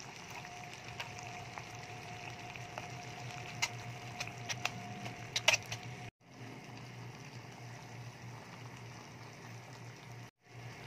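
Sardines in tomato sauce simmering in a nonstick frying pan, bubbling over a steady low hum. A run of sharp clicks and pops comes between about four and five and a half seconds in. The sound drops out completely twice, briefly.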